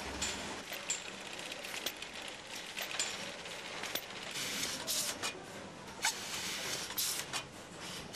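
Automated cheese-packaging line running: a steady hiss with irregular clicks and a few short hissing bursts from the machinery.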